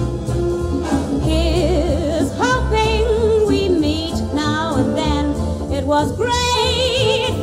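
A woman's voice singing long held notes with a wide vibrato over band accompaniment with a steady bass pulse.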